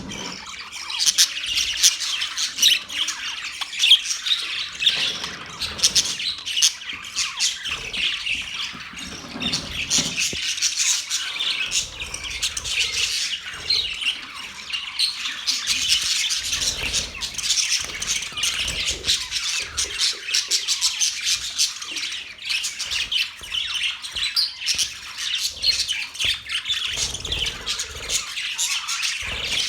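Budgerigars chirping and chattering without a break, a dense run of quick high calls.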